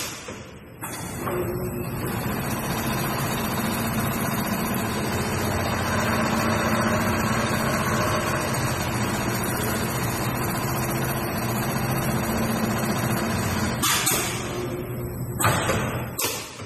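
JYL-G3020R computerised pattern sewing machine with a 750 W direct-drive servo motor, running steadily while it sews a pattern, then two short sharp sounds near the end as it stops.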